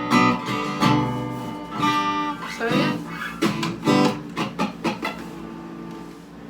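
Mahogany acoustic-electric guitar played through a small practice amplifier. A few chords are strummed, then a quick run of single picked notes, and a last note is left ringing and fading.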